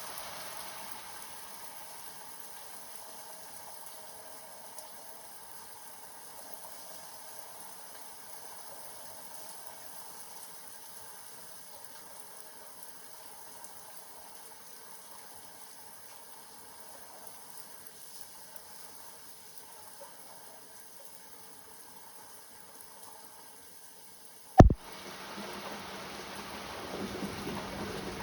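A steady, watery hiss, then a sharp click about three-quarters of the way in, followed by louder, heavier rain.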